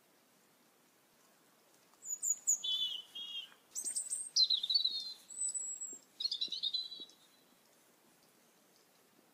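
A songbird sings one varied phrase of high chirps, short trills and a whistled note, starting about two seconds in and lasting about five seconds. Before and after there is only faint background hiss.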